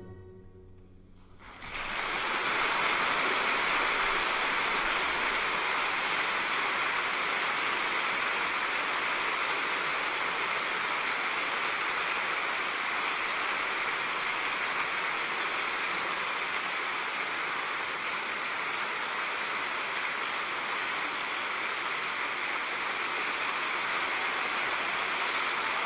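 Audience applause: a short hush as the music ends, then clapping breaks out about a second and a half in and holds steady.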